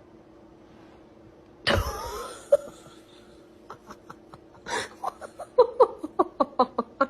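A sudden loud cry about two seconds in, followed by a person laughing in short rapid bursts.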